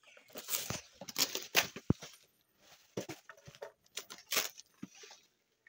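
Cardboard box and its plastic packing strap being handled and pulled at: irregular rustling and scraping with sharp clicks, and a loud knock about two seconds in.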